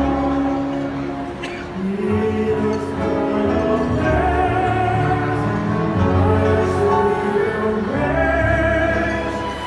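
Orchestra playing a slow ballad with operatic singing over it, long notes held and changing slowly.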